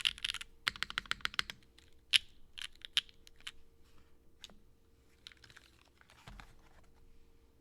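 Typing on a custom mechanical keyboard with Gateron Pure Berry switches, an aluminium plate and GMK keycaps. Fast keystrokes about a second in thin out to scattered single clicks and stop before the end.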